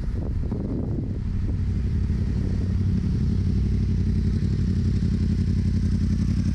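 2018 Yamaha R1's crossplane inline-four running at low revs through a Two Brothers exhaust with the catalytic converter deleted, as the bike rolls up slowly. A few sharp crackles in about the first second, then a steady low engine note.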